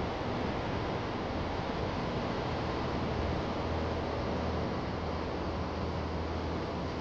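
A steady rushing noise with a faint low hum underneath, even throughout.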